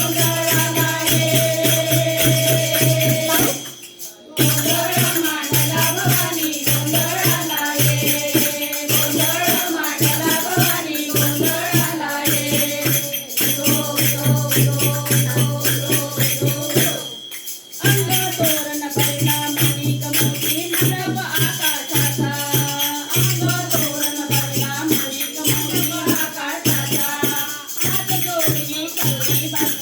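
Gondhal devotional song to the goddess Bhavani: a voice singing over fast, dense percussion and a steady low tone. The music breaks off briefly about four seconds in and again a little past halfway.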